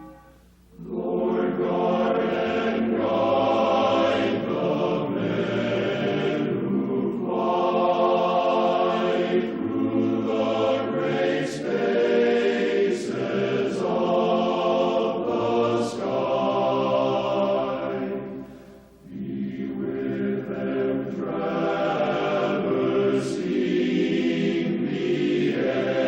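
Choral music: a choir singing long held chords in phrases of a few seconds. It breaks off briefly about a second in and again about two-thirds of the way through.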